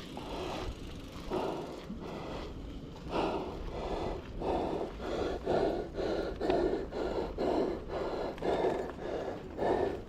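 A person panting hard, about two breaths a second, the breaths growing louder about three seconds in.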